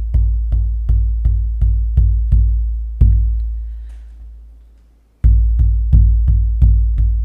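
A deep hand drum struck in an even beat of about three strokes a second, beating out the line pattern of an I Ching hexagram, with two beats for an open line and one for a closed line. About three seconds in, one stroke is left to ring and die away for roughly two seconds before the beat starts again.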